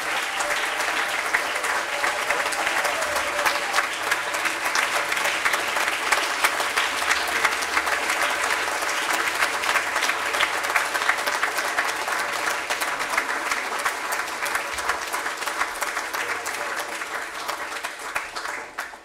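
Large audience applauding continuously, a dense patter of many hands clapping at once, dying away at the very end.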